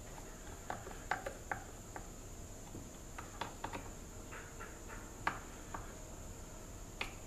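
Screwdriver running screws into a McCulloch Mac Cat chainsaw's plastic top housing: scattered light clicks and ticks, some in quick pairs, as the screws are turned and worked back and forth.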